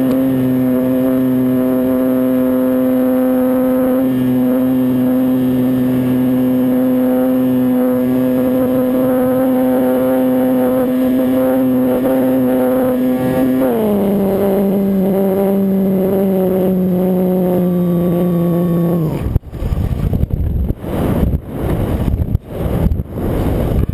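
RC scale biplane's motor running at a steady high throttle. About two-thirds of the way through, its pitch drops as it is throttled back, and a few seconds later it cuts off suddenly. Irregular gusts of rushing air noise follow.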